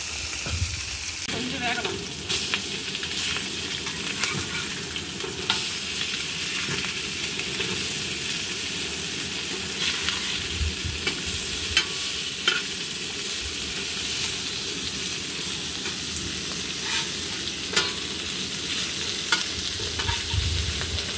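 Fish steaks sizzling in oil on an iron tawa, a steady frying hiss, with scattered sharp scrapes and taps of a metal spatula on the pan as the pieces are turned.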